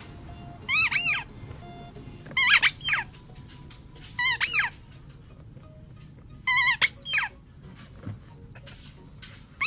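Pink spiky vinyl squeaky bone toy squeezed by hand, giving short bursts of high squeaks that bend up and down in pitch, about every two seconds.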